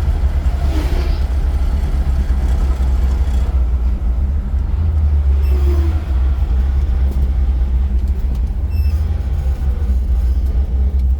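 Built 327 small-block V8 in a 1964 Chevrolet Impala SS running, a steady low rumble.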